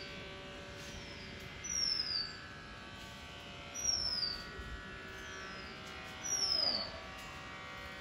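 Oriental magpie robin fledglings calling: a short, high note that slides downward, repeated about every two seconds. A steady buzzing hum runs underneath.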